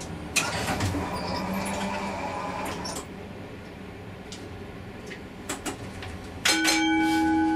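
Comeng A-class tram running along the track: wheel-and-rail running noise, louder and rattly for the first few seconds, with a few sharp clicks. Near the end a steady, multi-pitched whine sets in suddenly and is the loudest sound.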